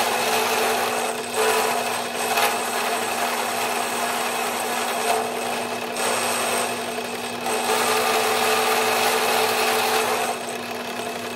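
Drill press running as a light-duty milling machine, its cutter taking a side cut in a workpiece held in a cross-slide vise fed by a hand-cranked lead screw. A steady motor hum sits under the cutting noise, which rises and falls as the feed goes on.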